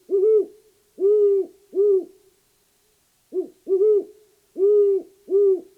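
Great horned owl hooting: two bouts of deep, evenly pitched hoots, the second bout beginning about three and a half seconds in.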